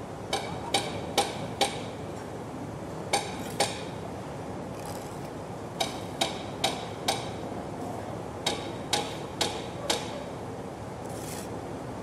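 Hammer blows on a building site, heard inside with some echo: fourteen sharp strikes in groups of four, two, four and four, about two a second. A steady background hiss runs under them.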